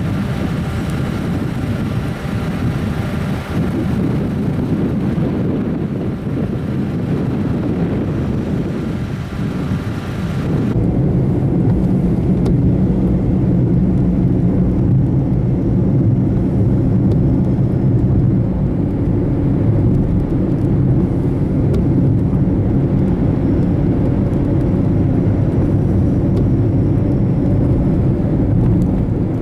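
Steady noise of a car on the move, engine and road noise. About eleven seconds in the high hiss stops abruptly, leaving a steadier low hum.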